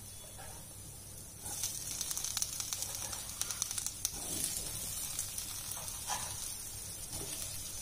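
Chopped onions and carrots sizzling in oil in a frying pan. The sizzle grows louder about a second and a half in, as chopped bell peppers are dropped into the pan.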